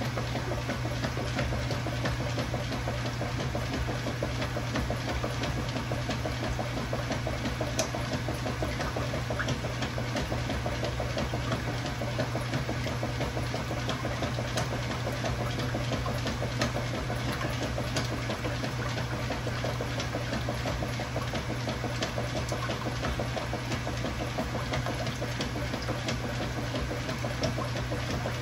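Kenmore Ultra Fabric Care top-loading washer running with a KitchenAid Dual Action Agitator fitted: a steady motor hum with a fast, even mechanical rattle over it.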